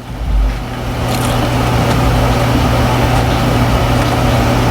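A steady mechanical hum: a low, even drone with a hiss over it, unbroken throughout.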